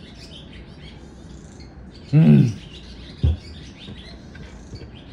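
A man's short, falling 'ahh' after a sip of coffee about two seconds in, followed a second later by a single short knock. Birds chirp faintly in the background throughout.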